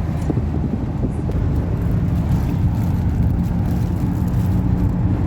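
Volkswagen Kombi van driving at a steady speed, its engine drone and road noise heard from inside the cabin.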